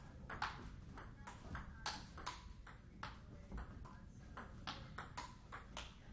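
Table tennis ball clicking off the bats and the table in a rally, a sharp tick about three times a second.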